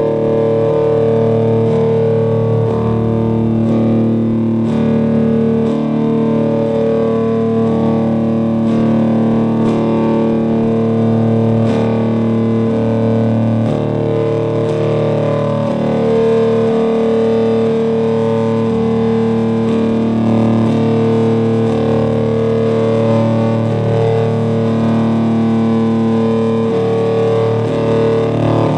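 Music made of long held notes that shift every second or two, steady in loudness throughout.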